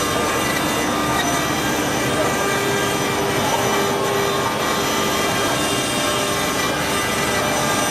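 Stone-carving CNC router running steadily: the spindle whines at several fixed pitches over a continuous grinding hiss as the bit cuts stone.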